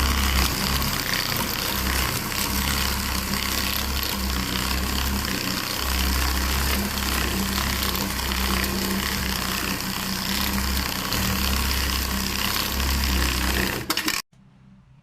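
A machine running steadily, with a low hum that swells and fades every second or two over a broad rushing noise. It cuts off suddenly near the end.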